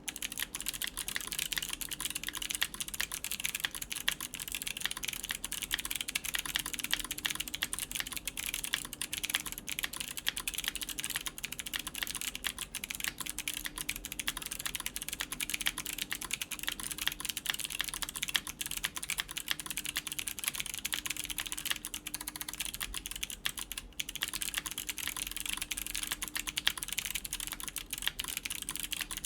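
Continuous fast typing on a mechanical keyboard with clicky Kailh Box White v2 switches, stock and unlubed, in an aluminum plate under GMK Space Cadet keycaps: a dense stream of sharp clicks, with a short break about three-quarters of the way through.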